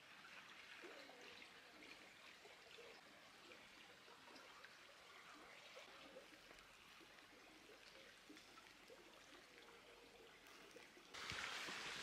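Faint, steady trickle of a small, shallow forest creek flowing over its bed. About a second before the end a louder hiss of broad noise comes in.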